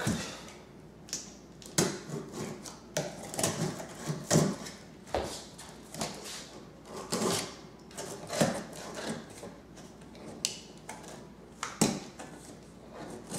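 Cardboard packaging being opened and handled by hand: irregular knocks, clicks, scrapes and rustles, one after another.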